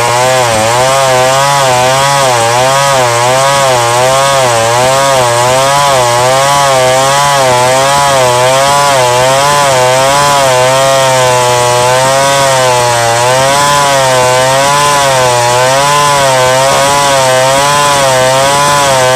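Two-stroke chainsaw cutting ulin (ironwood), running loud and steady under load, its engine pitch wavering up and down about once a second.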